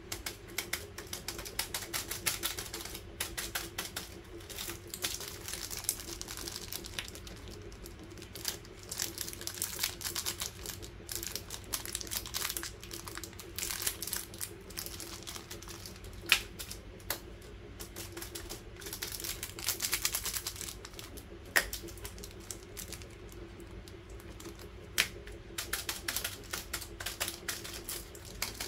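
Plastic chocolate-bar wrappers crinkling and rustling in the hands, with dense small clicks and a few sharper taps as packets are picked up and set down on a hard tabletop. A steady low hum runs underneath.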